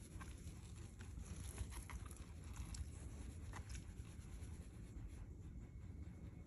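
A hand stroking and rubbing a Shiba Inu's head fur: soft, faint rustling with a few light ticks in the first half.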